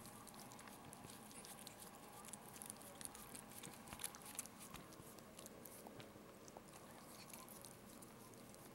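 Faint, irregular mouth clicks of a Maltese mother licking and nibbling at her newborn puppy as she cleans it after the birth.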